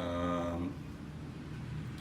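A man's drawn-out hesitation sound, a held "uhh" lasting under a second, then a low steady room hum.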